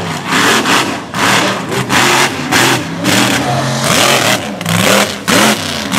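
Mega mud truck's engine revving hard in quick repeated bursts, the pitch rising and falling about twice a second as the throttle is worked.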